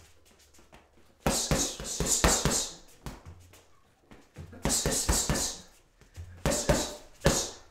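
Leather boxing gloves hitting a hanging heavy bag: three flurries of quick punches, each a run of sharp thuds with a hiss over them.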